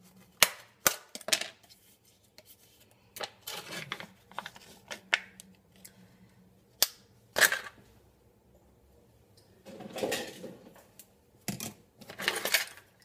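Plastic mascarpone tub being handled and opened: irregular sharp clicks and snaps of the plastic, with longer crinkling stretches about ten seconds in and near the end.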